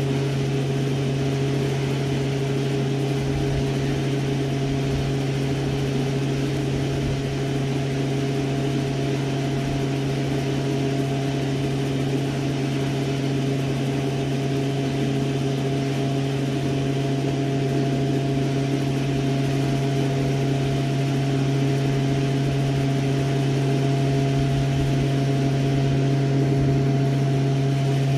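A steady, low machine hum with a few fainter steady tones above it.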